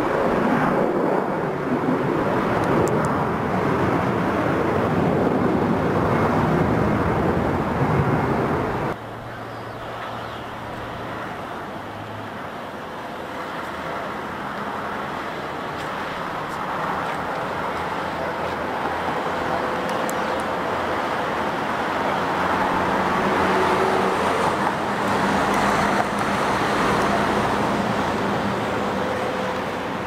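Jet engine roar from an Airbus A320 climbing away after takeoff, cut off abruptly about nine seconds in. Then the CFM56-7B turbofans of a Boeing 737-800 on final approach grow steadily louder as it comes in to land, peaking near the end.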